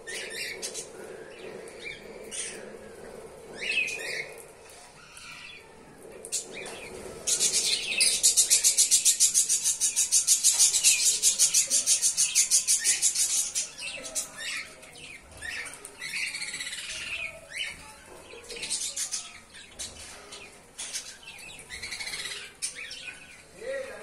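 Flock of budgerigars and lovebirds chirping in short, scattered high calls. About a third of the way in, a loud, fast, evenly pulsing high sound starts and runs for about six seconds, then the scattered chirps carry on.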